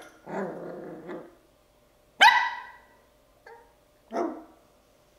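Bichon Frise puppy, ten weeks old, barking in a series of calls. A longer, drawn-out sound fills the first second. The loudest, sharpest bark comes about two seconds in, a brief yip follows, and another bark comes near the end.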